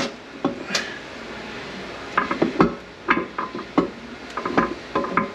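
Metal parts of an SM465 manual transmission clinking and knocking irregularly, some with a short ring, as the countershaft gear is worked loose inside the steel case.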